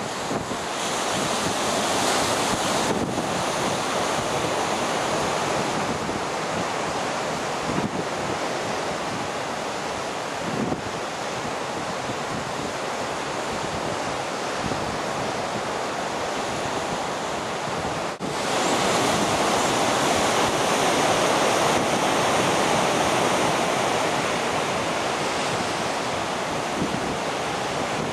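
Rough sea surf breaking and churning in a continuous wash of noise, with wind buffeting the microphone. There is a sudden brief drop about 18 seconds in, after which the surf is a little louder.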